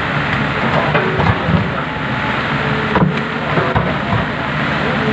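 Steady rain hiss over the low hum of a hydraulic excavator's diesel engine running, with a few short knocks.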